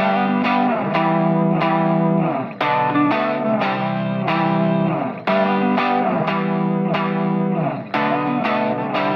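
Background music: an electric guitar with effects playing a steady run of plucked notes.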